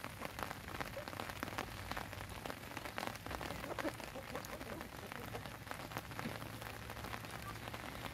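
Light rain falling: a steady hiss with many small drop ticks.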